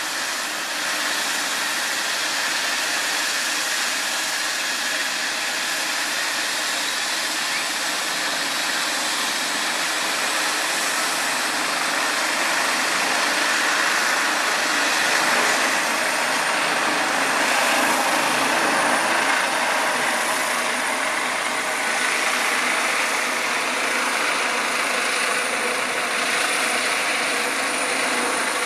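Eurocopter EC135 air-ambulance helicopter running its twin turbines and rotor at high power and then lifting off: a loud, steady rush with a high turbine whine. It grows louder about halfway through, as the whine climbs slightly and settles.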